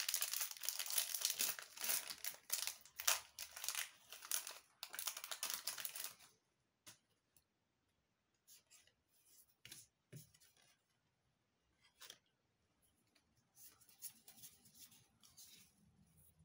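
Foil Pokémon TCG booster pack wrapper being torn open and crinkled for about six seconds, then a few faint clicks and rustles as the cards are handled.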